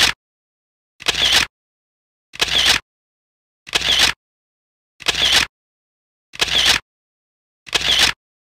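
The same half-second fragment of the background music repeats about every 1.3 seconds, with dead silence between repeats. It is a stuttering audio loop, heard about seven times.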